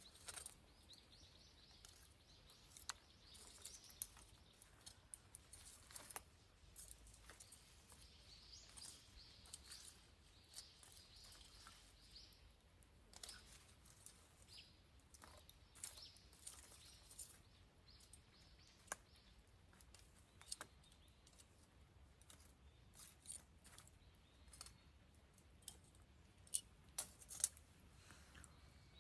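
Wood campfire crackling faintly, with irregular sharp pops and snaps, a few clustered together near the end.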